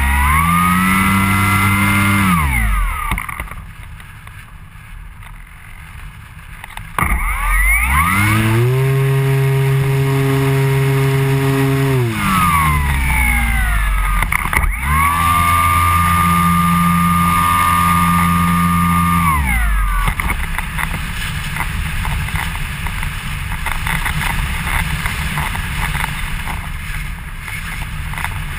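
Model glider's motor and folding propeller, heard from a camera on the nose. The motor runs up three times, holds a steady whine and winds down each time. In between, and after the last run, air rushes past the airframe while it glides.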